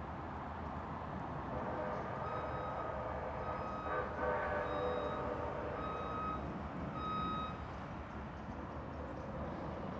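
Steady low rumble with a repeating electronic beep: five short beeps about a second apart, from about two seconds in until past seven seconds.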